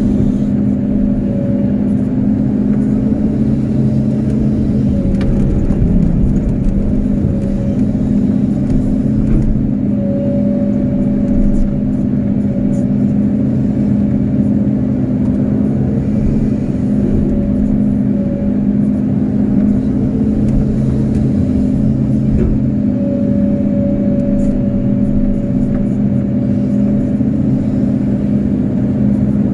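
Kobelco SK250-8 excavator's diesel engine running steadily under working load while the arm and bucket dig wet sand from a ditch, heard from the operator's cab. A higher whine comes and goes several times over the engine note.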